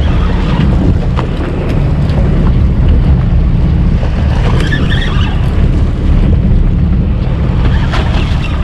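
Loud, steady rumble of wind buffeting the microphone over a boat's motor running.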